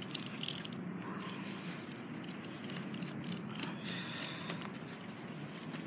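A knife blade scraping the spines and areoles off a prickly pear (nopal) cactus pad in quick, irregular strokes, with light metallic clicks from the blade and tongs.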